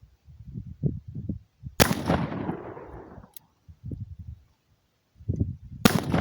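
Two shots from an 1858 New Army black powder revolver, about four seconds apart, each a sharp crack followed by a long echoing tail.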